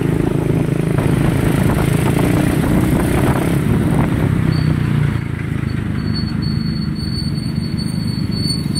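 Motorcycle engine running steadily while riding, with road traffic around. A faint high steady whine joins about halfway through.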